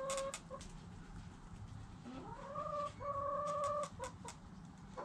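A chicken calling: a held call ends just after the start, then about two seconds in another rises and holds a steady pitch for over a second, with a brief break, followed by two short notes. Light ticks of chickens scratching and pecking in dry dirt come now and then.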